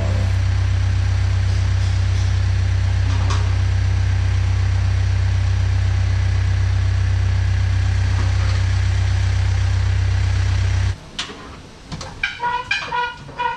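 An engine idling with a steady low hum that cuts off suddenly about eleven seconds in. A few clicks and knocks follow, and music starts near the end.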